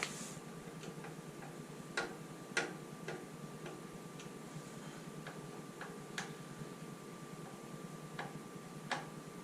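Irregular light clicks and taps of small parts being handled while a headlight and its bracket are fitted, the loudest pair about two seconds in, over a faint steady hum.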